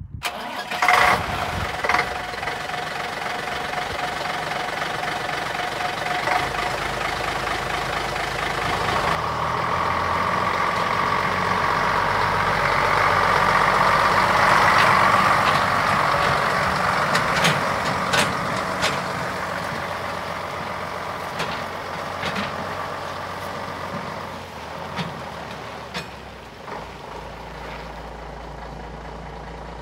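Scania LS 85 Super's six-cylinder diesel engine running steadily, growing louder toward the middle and fading near the end, with a few short sharp clicks over it.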